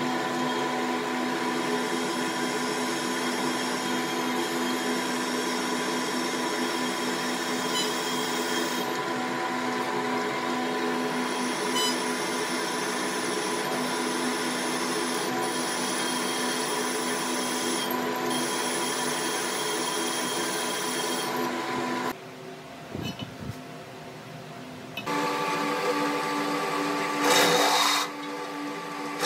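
Drill press motor running steadily while its twist bit bores through the steel hook jaw of a pipe wrench. About 22 seconds in the sound drops away, and a few seconds later the drill runs again, with a short, louder rasp near the end.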